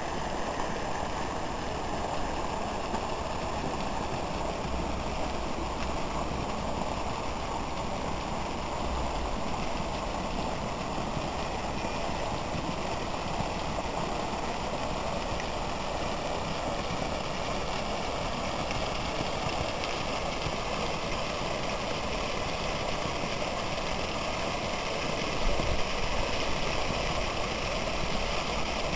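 Steady rushing of flowing hot-spring water, with a few low rumbles, the strongest a little before the end.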